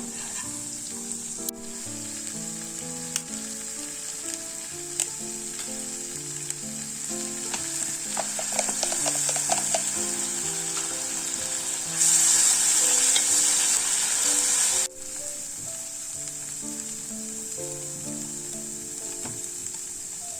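Food frying in a pan, a steady sizzle with a few clicks and stirring sounds. The sizzle grows louder for about three seconds after the middle, then drops suddenly. A soft melody of background music plays under it.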